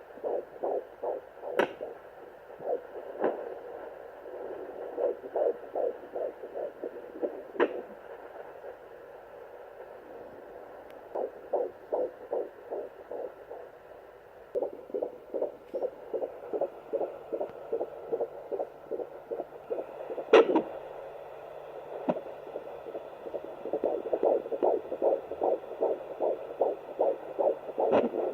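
Sonoline fetal doppler picking up a fetal heartbeat: fast, even whooshing pulses, about two and a half to three a second, that fade for a few seconds in the middle and then come back strongly. A few sharp clicks cut through, and a faint low hum comes in about halfway.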